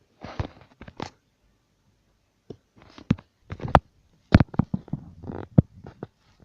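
A string of sharp knocks and clicks, about a dozen, with short rustling between them, loudest a little past the middle.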